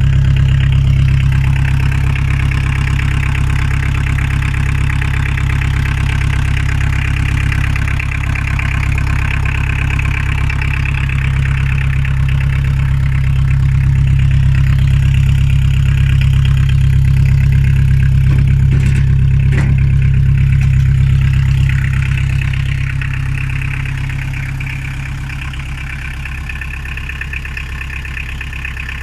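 Volkswagen 1.9 litre four-cylinder diesel engine of a homemade tractor running steadily, getting quieter over the last several seconds.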